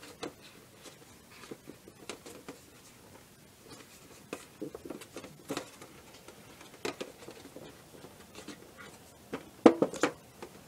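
Hands pressing and shaping Play-Doh on an aluminium baking sheet: scattered soft taps and rubbing, with a louder cluster of knocks near the end as a hand pats the tray.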